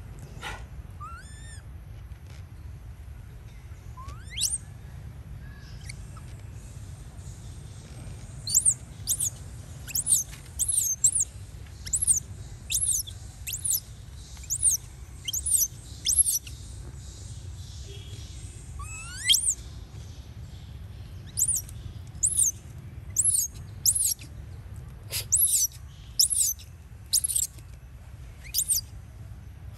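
Infant long-tailed macaque crying in a string of short, very high-pitched squeals, about one a second, with a few longer squeals that rise in pitch among them.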